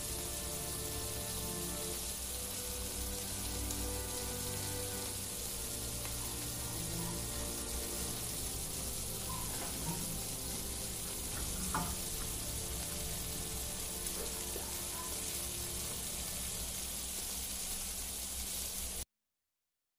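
Picanha sizzling on a hot cooking stone, a steady even sizzle with soft background music under it; the sound cuts off abruptly about a second before the end.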